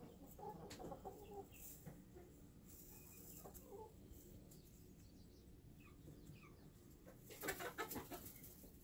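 A hen clucking softly now and then. A short burst of louder rustling clicks comes near the end.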